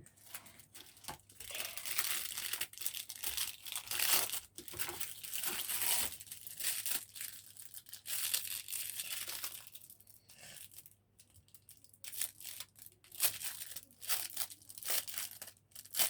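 Packaging crinkling and tearing as it is handled and pulled open, in spells of rustling with a quieter lull about two-thirds of the way through.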